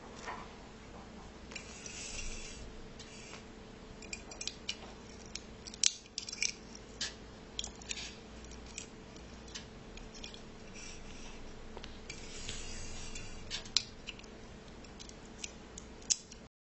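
Hands handling an aluminium drink can and thin wire: irregular small metallic clicks and taps, with two longer stretches of crinkly rubbing and scraping, one near the start and one about three-quarters through. A faint steady hum runs underneath.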